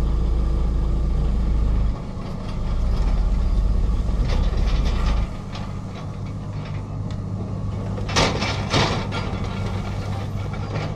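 Excavator diesel engines running with an Xcentric Ripper XR30 vibrating ripper working rock: a heavy low vibrating hum that cuts out about five seconds in, leaving the engine drone. Near the end come two loud crashes of rock.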